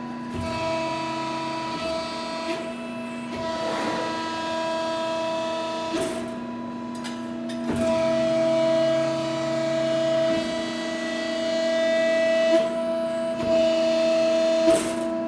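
Cincinnati 90-ton CNC hydraulic press brake running under power: a steady whine of several held tones, with a lower hum that comes and goes twice and a few sharp knocks.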